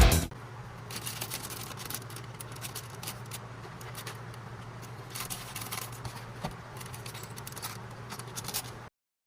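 Small plastic minifigure parts being handled, with scattered light clicks and rustles over a steady low hum. Electronic music cuts off at the very start, and the sound drops to dead silence just before the end.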